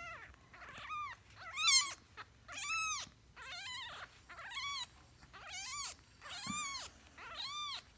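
Week-old kitten mewing over and over, about once a second, each high cry rising and falling in pitch, while its belly and rear are rubbed with a wipe to make it urinate.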